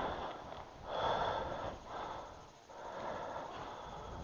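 A person's heavy breathing: two long noisy breaths, about a second in and again near the end.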